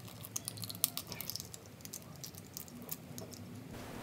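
Cracked eggshell crackling in many small, quick clicks as fingers pull the egg apart over a glass bowl.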